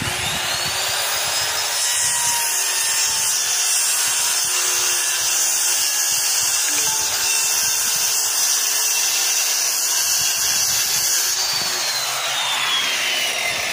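Handheld circular saw starting with a rising whine and cutting through a wooden board, running steadily under load. Near the end the trigger is released and the blade winds down with a falling whine.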